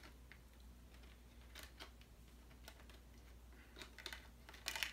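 Faint clicks and light handling noises of discs and a Blu-ray SteelBook case being handled, with a brief flurry of clicks near the end.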